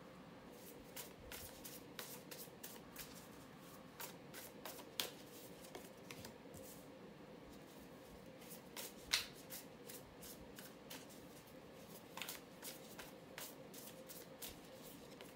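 Tarot cards being handled: shuffled and laid one at a time onto a table. It comes as a faint, irregular scatter of soft flicks and taps, with a few sharper snaps.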